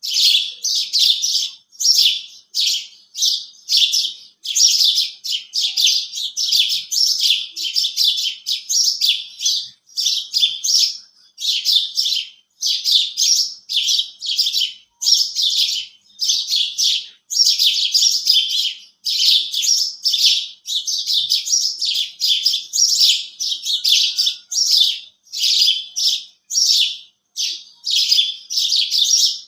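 House sparrows chirping continuously: an unbroken run of short, sharp chirps, a few a second, with no pause.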